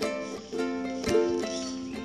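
Background music of a plucked string instrument, with notes and chords struck about every half second and ringing out between strikes.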